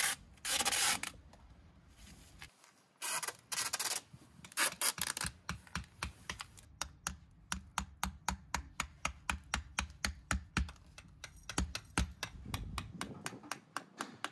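Adhesive seam tape pulled off its roll in two rasping bursts. Then a hammer tapping metal weed-barrier pins through the tape and fabric into the ground, a long run of quick light strikes about four a second.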